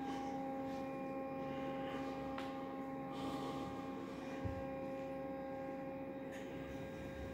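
Steady electrical hum made of several steady tones, with a faint click about two and a half seconds in and a soft low thump a couple of seconds later.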